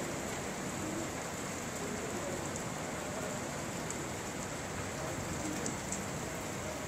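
Steady rain falling on pavement and parked cars, an even hiss with a few faint drop ticks.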